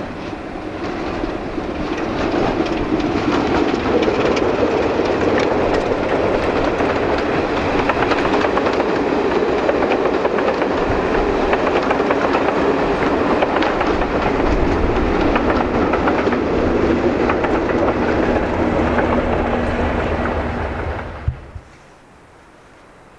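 Diesel-hauled passenger train passing close by: the locomotive's engine running with a steady hum and the coaches' wheels clattering on the rails. The sound builds over the first few seconds and cuts off suddenly near the end.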